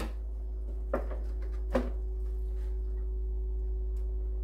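Metal tongs and a spatula knocking against a disposable aluminium foil roasting pan while a baked chicken is lifted out: three sharp clicks in the first two seconds, the last the loudest, over a steady low hum.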